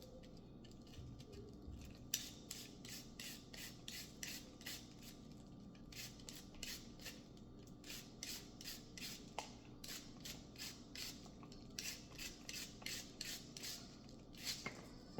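Rhythmic rasping strokes, about three a second with a few short breaks, of food being shredded by hand in the kitchen.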